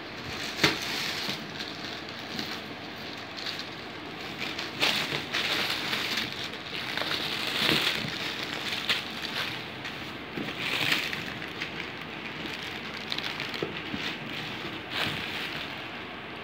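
Cardboard and plastic packaging rustling and crinkling as hands pull a boxed electric iron out of a shipping carton, with scattered knocks and scrapes. The handling swells louder several times, around five, eight and eleven seconds in.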